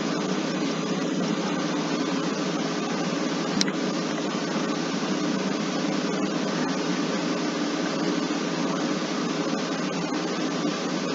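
Steady hiss and hum of background noise, like a fan or air conditioner running, with one sharp click about three and a half seconds in.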